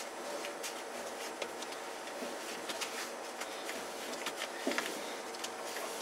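Faint handling sounds: a few light clicks and rubs as gloved hands turn a threaded chuck backplate resting on a plywood board, over steady low shop background noise.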